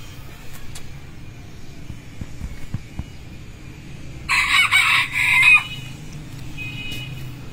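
A cock fowl's loud, harsh crowing call about four seconds in, just over a second long and broken into two parts.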